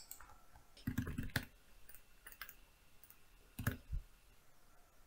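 Computer keyboard typing and mouse clicks: a quick run of key taps about a second in, a few faint clicks a little later, and a louder pair of keystrokes near four seconds.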